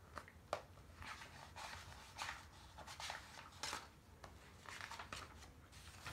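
Faint rustling and soft handling noises of a paperback picture book as it is turned and its cover and pages are opened, coming in a few short, irregular scrapes over a low, steady room hum.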